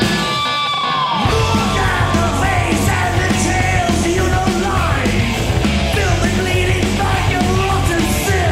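Heavy metal band recording with electric guitar, bass and drums. The bass and drums drop out for about a second at the start under a run of falling pitch glides, then the full band comes back in.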